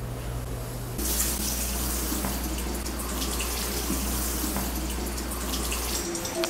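Water running from a kitchen faucet into a sink while hands are washed under it. It starts suddenly about a second in, after a low steady hum, and stops shortly before the end.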